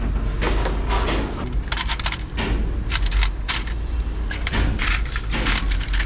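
Irregular metallic clinks and knocks as an engine mount bracket and its bolts are handled and fitted against a truck diesel engine block, over a steady low rumble.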